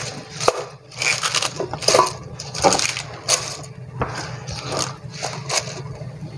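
Torn cabbage leaves scooped by hand off a plastic cutting board into a stainless steel pot: crisp rustling and crunching of the leaves in repeated short bursts, one for each handful.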